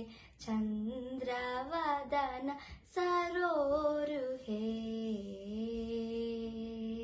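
A girl singing a Hindu devotional bhajan solo, with no accompaniment: a held note, then two phrases with sliding ornaments, then one long held note from about halfway in.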